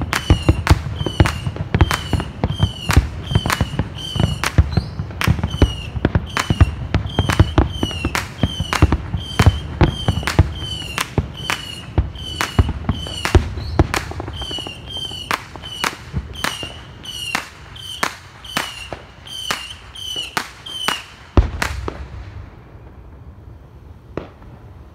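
A rapid barrage of aerial fireworks going off, about two sharp bangs a second over a low rumble of echoes, each bang trailed by a short high whistle. The barrage ends with one last loud bang about 21 seconds in.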